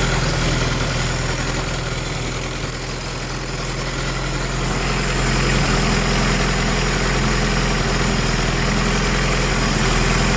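Honda B18B1 four-cylinder engine with forged Wiseco pistons idling after a cold start, with the piston slap that its owner hears from the forged pistons while cold. The sound dips briefly in level about three seconds in, then steadies.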